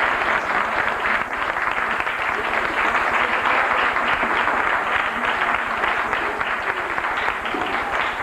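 Audience applauding steadily in a large room.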